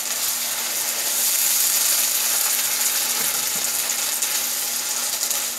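Okra and tomatoes sizzling steadily in a skillet over high heat: an even, bubbling hiss.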